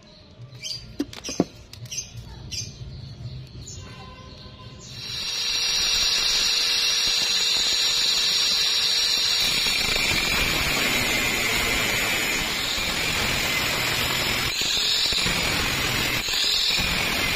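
An angle grinder with a thin cut-off disc starts about five seconds in, after a few light clicks, with a steady high whine. From about ten seconds in the disc cuts through a metal pipe, adding a harsh grinding noise. The whine rises briefly a couple of times near the end.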